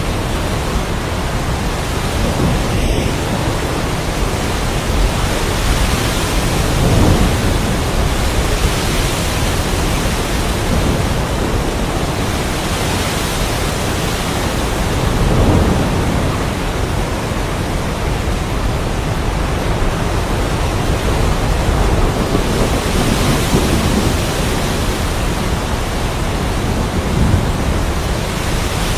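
Heavy rain pouring steadily in a thunderstorm, with low rolls of thunder swelling up a few times.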